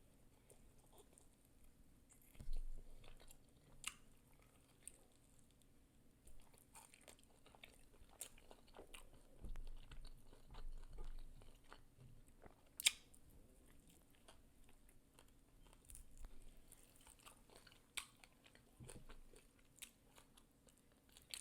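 Person chewing chicken wings close to the microphone: soft, wet mouth smacks and sharp clicks with brief bites, the sharpest click about 13 seconds in.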